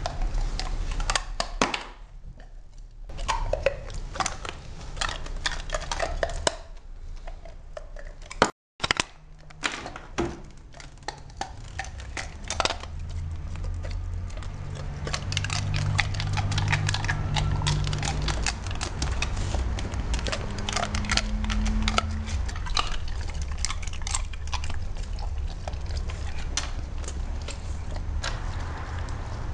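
A basset hound crunching and chewing an ice cube: a long run of sharp, irregular cracks and crunches.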